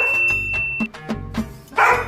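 Background music with a dog barking: one short bark right at the start and another near the end. A high, steady chime rings over the music and stops about a second in.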